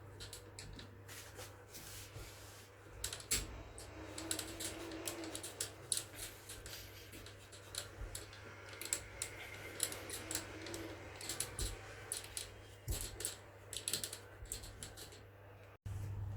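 Irregular light clicks and clinks of small metal tools and parts being handled, over a steady low hum.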